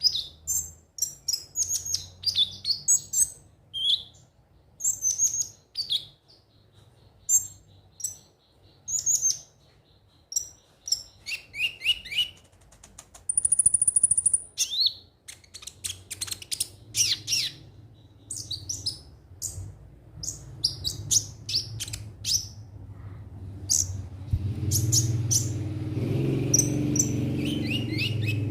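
Konin (kolibri ninja) sunbird singing: a fast run of thin, high chirps and twitters, with a short held high whistle about halfway through. A low rumble grows beneath the song near the end.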